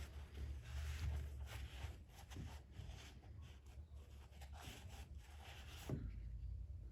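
Faint rustling and scraping from hands working on and wiping the intake coupling, stopping about six seconds in, over a low steady hum.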